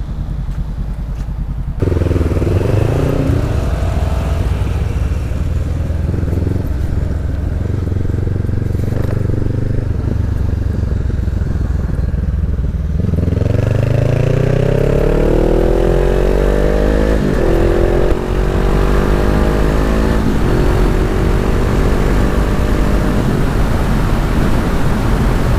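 Honda CB 500F parallel-twin engine running through a Jeskap aftermarket exhaust, catalytic converter still fitted, while the bike is ridden on the road. The engine pitch climbs under acceleration about two seconds in and again from about thirteen seconds, with a short break near eighteen seconds as it changes gear, over steady wind rush.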